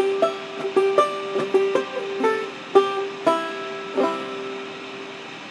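Banjo played clawhammer style: a run of plucked notes and brushed strums, ending on a final strum about four seconds in that rings out and fades away.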